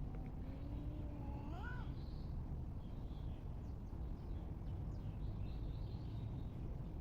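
A cat meowing once, a drawn-out low call that rises sharply in pitch at the end, lasting nearly two seconds. Birds chirp faintly throughout over a steady low outdoor rumble.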